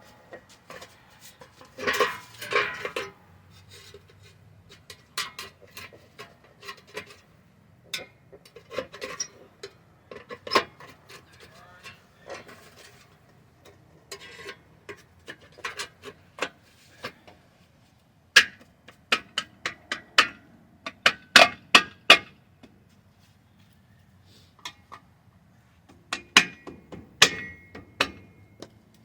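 Sharp clicks and metallic knocks of hand work on a car door, parts and tools being handled and tapped into place, with a quick run of louder knocks about two thirds of the way through.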